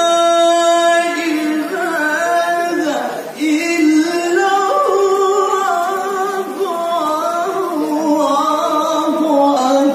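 A male qari reciting the Quran in the melodic tilawah style into a microphone. He holds one long note, then sings ornamented, winding phrases, with a brief pause for breath about three seconds in.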